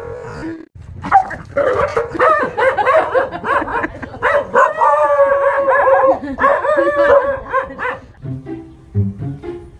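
A dog barking, mixed with music.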